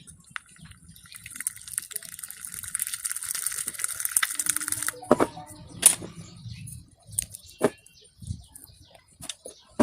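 Homemade glue-and-borax slime being worked by hand: about four seconds of wet crackling starting about a second in, then scattered sticky pops and clicks.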